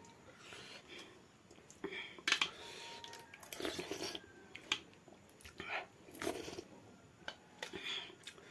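A person chewing food close to the microphone, with irregular short clicks and smacks of the mouth.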